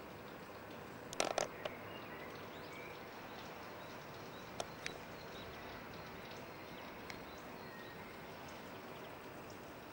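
Faint outdoor ambience: a steady hiss with a few faint bird chirps. A cluster of sharp clicks comes about a second in and two more near the middle.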